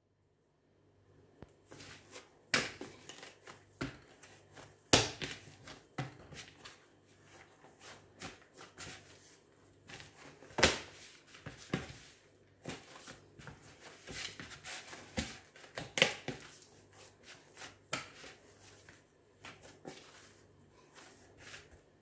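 Hands kneading sticky bread dough in a plastic mixing bowl: irregular squishing and rustling, with a few sharper slaps or knocks of the dough against the bowl.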